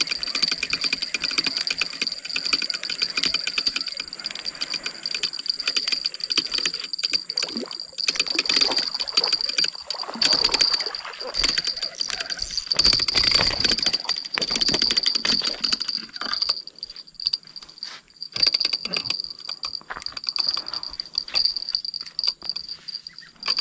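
Spinning reel cranked steadily while reeling in a hooked patin catfish, its gears and handle giving a dense run of small metallic clicks and rattles. The clicking thins out in the last few seconds.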